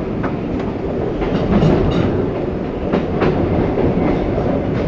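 Izuhakone Railway 1100 series (ex-Seibu 701 series) electric train heard from its cab while running, a steady low running noise under short, irregular clicks from the wheels on the track.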